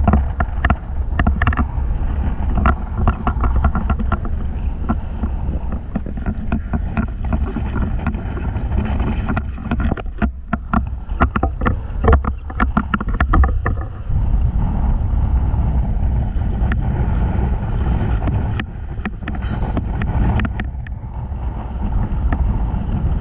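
Small dive boat under way: a steady low engine and hull rumble, with wind buffeting the microphone and many short knocks and crackles, busiest in the middle.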